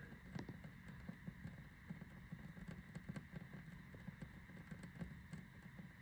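Faint handling noise while soldering a small wire splice: light scattered clicks and ticks as the iron tip and wires are worked.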